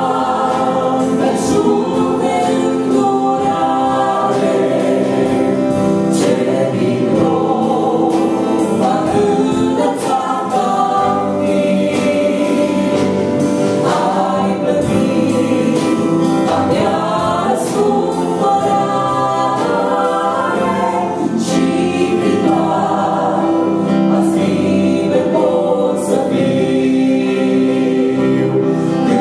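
Mixed vocal group of two men and two women singing a Romanian Christian song in harmony through handheld microphones, steady and continuous.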